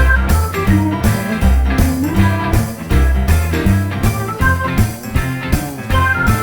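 Background music: blues-rock with guitar, bass and drums playing to a steady beat.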